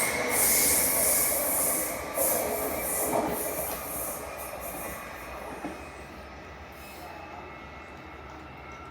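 A train running past on the rails, its wheels squealing and hissing, fading away over the first five or six seconds to a faint background.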